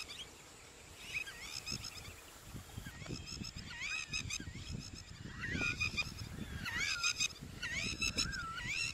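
A bird calling repeatedly: short squawking notes that swoop up and down in pitch, coming in clusters and more often in the second half, over a low rumble.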